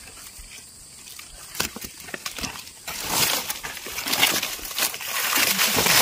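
Dry forest leaf litter rustling and crackling, with a few faint clicks at first, then much louder, dense crunching from about three seconds in as the leaves are moved through and brushed aside.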